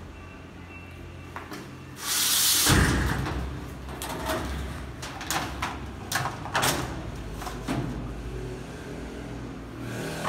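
Parts of a metal wire-mesh chick brooder cage being handled: a loud scraping slide about two seconds in, then a series of sharp clicks and clatters as a plastic floor grate is fitted into a compartment, over a low steady hum.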